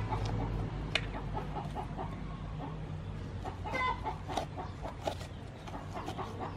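Chickens clucking, with a louder call at the start and another about four seconds in. Under them come the scrapes and clicks of a metal spoon scooping seeds and pulp out of a whole pumpkin.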